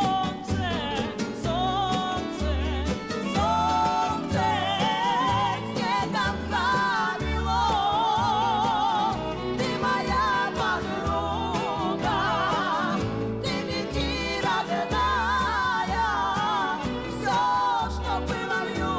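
A song: a singing voice with strong vibrato carries the melody over accompaniment with a bass note about once a second.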